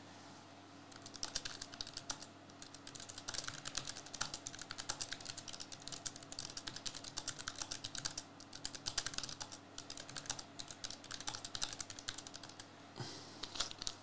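Typing on a computer keyboard: a fast, irregular run of key clicks. Near the end, a foil card pack begins to crinkle as it is handled.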